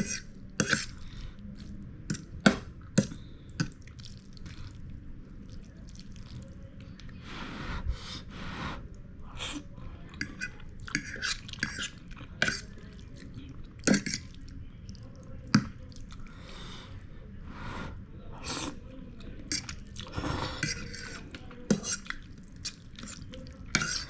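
Close-up chewing of instant noodles, wet mouth smacks and short irregular clicks, with now and then the clink of cutlery against a dish.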